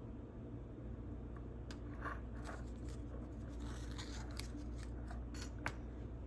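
Quiet handling of a glass jar: twine being tied around it and a tag fitted, with soft rustles and a few small sharp clicks, over a low steady hum.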